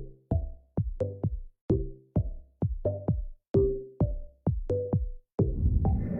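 Electronic music with a drum-machine beat, sharp hits each trailed by a short pitched note. A fuller, hissier layer comes in near the end.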